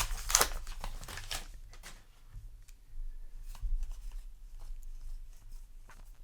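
Trading card booster pack wrapper crinkling as it is torn open, loudest in the first second and a half, then quieter rustles and light clicks of the cards being handled.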